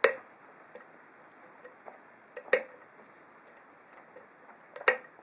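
Small metallic clicks of a hook pick and tension wrench working the pin stack of an ASSA SCD 7-pin oval cylinder: three sharp clicks about two and a half seconds apart, with fainter ticks between, as pin two is lifted toward its set.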